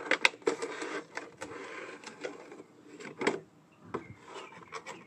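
Paperboard box being opened by hand: the card flaps and inner tray scrape and rustle as they slide apart, with a few sharp clicks of card.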